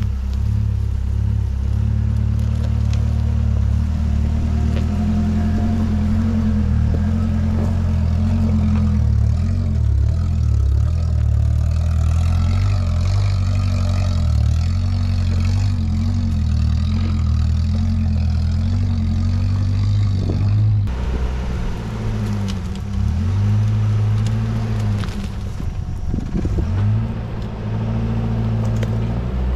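Toyota pickup's engine running at low revs as the truck climbs a steep trail in four-wheel drive: a steady low rumble that wavers with the throttle and changes abruptly about two-thirds of the way through.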